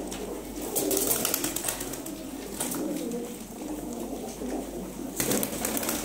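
A flock of domestic pigeons cooing together in a small loft, a continuous low burbling murmur. Bursts of sharp clicks and rustles break in about a second in and again near the end.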